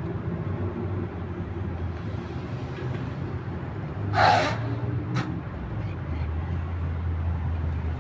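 Steady low rumble of city traffic, with a brief loud burst of noise about halfway through and a sharp click about a second later.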